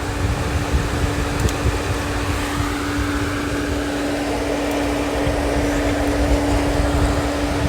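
A motor running with a steady, even hum over a low rumble and hiss.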